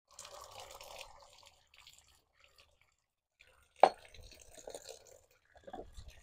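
Water from a pipe splashing over an aluminium motorcycle footstep and onto the stone floor, in uneven stretches, as the caustic soda is rinsed off after its anodized coating has been stripped. A single sharp knock about four seconds in.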